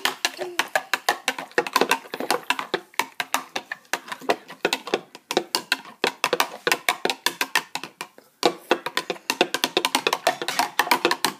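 Spoon stirring water in a tall drinking glass, clinking rapidly against the glass in a fast steady rhythm, with a couple of brief pauses; the stirring mixes blue colouring into the water.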